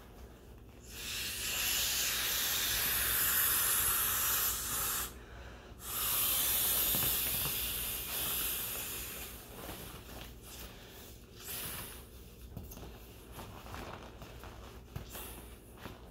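Breath blown by mouth through the valve of a small vinyl inflatable flamingo: two long, hissing exhales of about four seconds each, split by a short pause to inhale, then shorter, weaker puffs.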